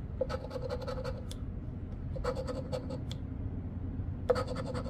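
Scratch-off lottery ticket being scratched with a poker-chip-style coin, in three bursts of quick rasping strokes.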